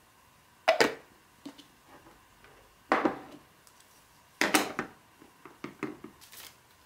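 Cereal bowl, its lid and a matching spoon being handled and set down: three sharp knocks and clatters, about a second in, three seconds in and four and a half seconds in, with lighter clicks near the end as the spoon is laid on the lid.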